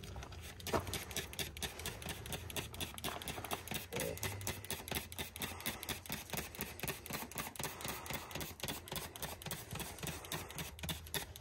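Plastic trigger spray bottle squeezed over and over in quick succession, several short spritzes a second, spraying fabric softener heavily onto carpet.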